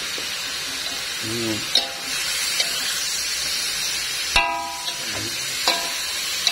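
Tempe and green beans sizzling with a steady hiss in a hot aluminium wok over a strong flame, stirred with a metal spatula that clicks and scrapes against the wok several times. A brief ringing tone sounds about two-thirds of the way through.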